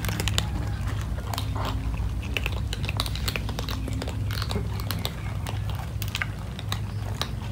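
A group of cats crunching dry kibble: a dense, irregular patter of small crunches and bites, over a steady low hum.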